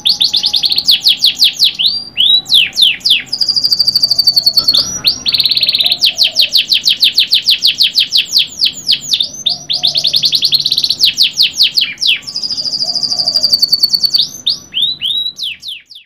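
Domestic canary singing a long continuous song of rapid trills: fast runs of repeated sweeping notes, some so fast they run together into a rolling trill, broken by a few single swooping whistles. The song stops abruptly near the end.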